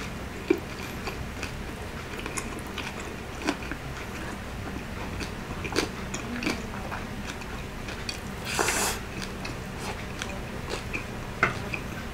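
Close-miked mouth sounds of a man chewing crispy deep-fried pork belly (lechon kawali) and rice, with scattered wet clicks and smacks. A longer breathy rush comes about eight and a half seconds in.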